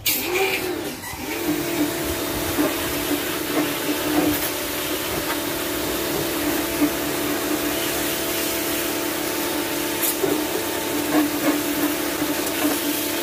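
Pressure washer running steadily, its motor humming under the hiss of the water jet spraying into the rusty steel chamber of a barrel smoker. The hum wavers in pitch briefly at the start, then holds steady.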